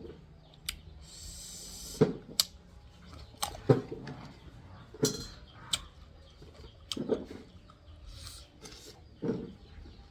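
A person eating close to the microphone: chewing and mouth smacks with sharp clicks, recurring every second or two.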